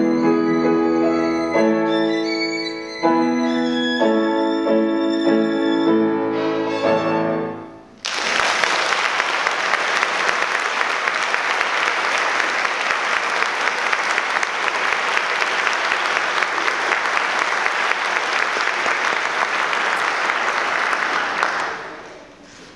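Violin with piano accompaniment playing the last notes of a piece, ending about seven seconds in. An audience then applauds steadily, fading out near the end.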